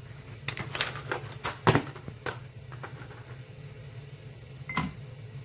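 Knocks and clicks of a glass and kitchen items being handled and set down: several close together in the first two seconds, the loudest about a second and a half in, and one more near the end, over a steady low hum.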